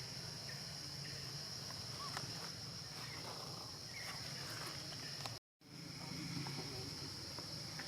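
Steady high-pitched insect drone over a low steady hum, with a few faint chirps; the sound drops out completely for a moment about two-thirds of the way through.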